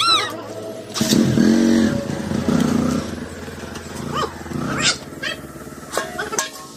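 Motorcycle engine starting about a second in and running as the bike pulls away, loudest for the first couple of seconds and then fading.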